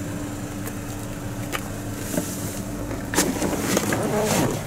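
Steady low hum inside a parked 2013 Buick Encore's cabin, with a thin steady tone that stops about three seconds in, followed by a few clicks and rustles from handling.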